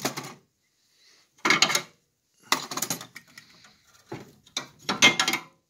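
Steel hand tools clicking and clattering as they are pulled from their clip holder and set down on the metal socket rails of a tool cart drawer, in three short bursts.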